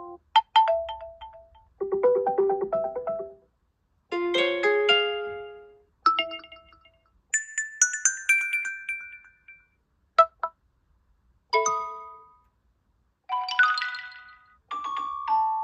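Huawei P60 Pro ringtones and alert tones played one after another: about nine short melodic electronic chimes, each a second or two long, with brief silent gaps between them.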